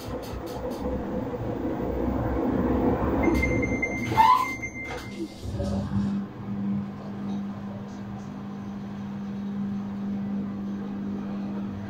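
Samsung AddWash front-loading washing machine running a wash, its drum tumbling laundry through sudsy water. About six seconds in the tumbling stops and a steady hum takes over.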